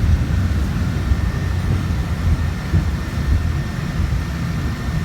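Steady low rumble of the Peak Tram, a cable-hauled funicular car, running along its track.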